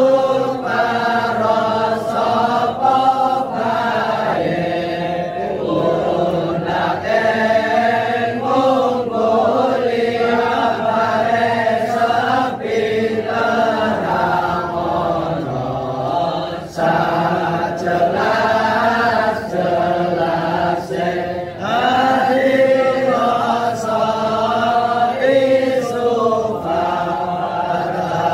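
A group of voices chanting prayers in unison, a continuous melodic chant that dips briefly about two-thirds of the way through.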